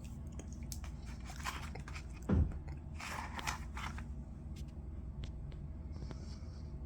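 Crinkling and scraping of packaging being handled, with scattered clicks, a low thump about two seconds in and a rustling burst soon after, over the steady hum of a room air conditioner.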